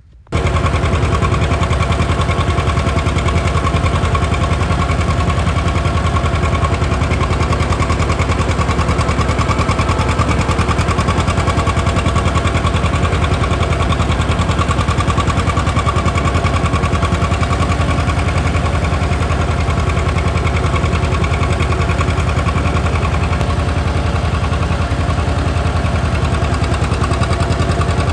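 John Deere 630's two-cylinder engine running as the tractor drives along, its exhaust popping in a fast, even beat, heard from the seat close beside the exhaust stack.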